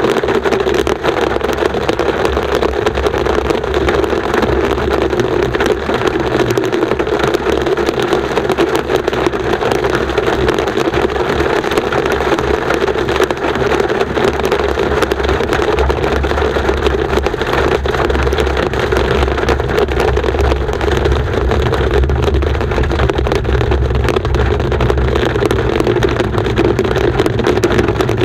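Hail drumming densely and without let-up on a car's roof and windshield, heard from inside the moving car over steady engine and tyre noise.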